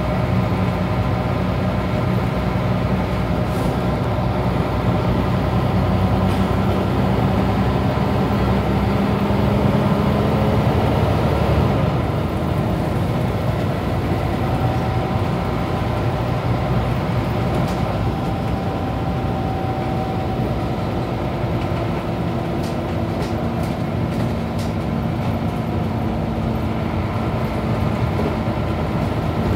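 Scania CN94UB Omnicity bus's diesel engine heard from inside the passenger saloon while the bus is under way. The engine note climbs in pitch until about twelve seconds in, then drops and runs on steadily.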